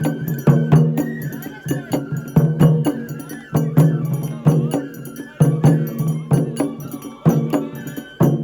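Japanese festival music: a steady, repeating percussion beat of sharp strikes under a high, wavering melody line.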